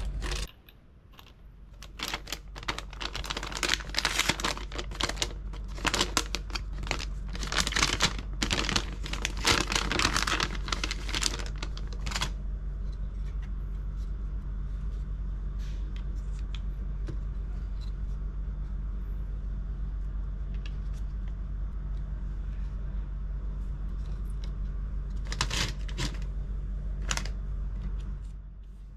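Close handling noises from working on an opened MacBook Pro 2015: a dense run of small clicks, scrapes and crinkling for about ten seconds, then a few more clicks near the end, over a steady low hum.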